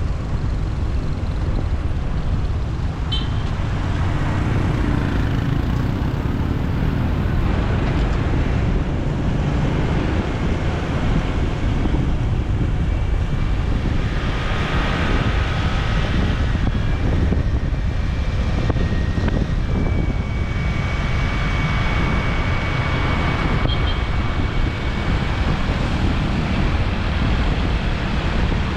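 Motorbike riding through city traffic: a steady, low rumble of engine and road noise, with a few faint, thin tones from passing vehicles in the middle.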